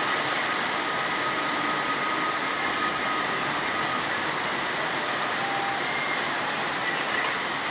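Steady rushing hiss with faint thin high tones running through it, even and unchanging.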